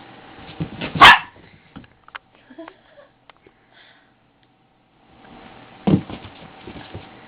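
Chihuahua barking: one loud, sharp bark about a second in and another near the end, with light clicks and taps between.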